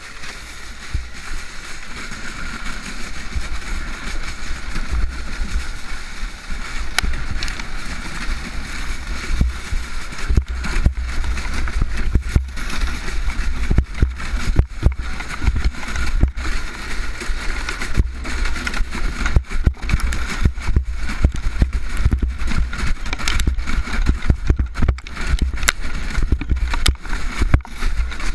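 Snowmobile engine running steadily ahead while towing a sled, under heavy wind rumble on the microphone and the sled hissing and jolting over packed snow. The knocks and bumps come thicker and harder from about ten seconds in.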